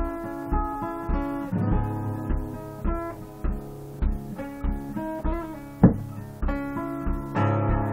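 Acoustic guitar played solo, single picked notes ringing over a steady low beat about twice a second, with one sharp knock about six seconds in.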